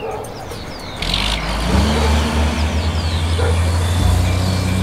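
Truck engine sound effect running with a low hum, its pitch rising and falling once in the middle as if revving, with a short hiss about a second in.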